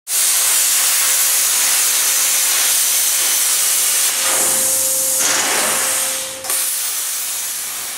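A loud, steady hiss with a faint steady tone underneath, dropping slightly in level about six and a half seconds in.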